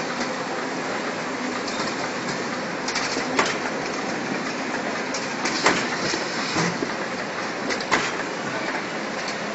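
Belt and roller conveyor line running steadily as it carries cartons, with a few sharp clacks now and then.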